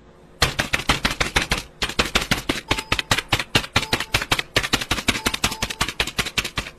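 A rapid run of sharp clicks or strikes, about eight a second, starting about half a second in, with a short break before it carries on.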